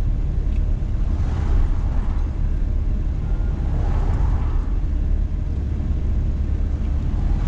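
Steady low rumble of a car's engine and tyres at highway speed, heard from inside the cabin. The whoosh of oncoming vehicles passing swells up about a second in and again about four seconds in.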